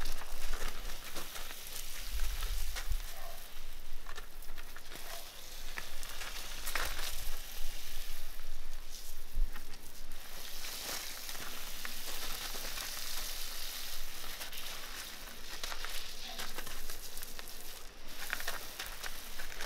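Garden hose spray nozzle hissing as water spatters onto gravel, heavier from about halfway through, with scattered crunches of a foal's hooves and boots on the gravel.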